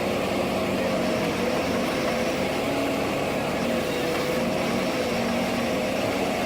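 Forestry harvester's engine and hydraulics running steadily under load, with a steady, slightly wavering whine.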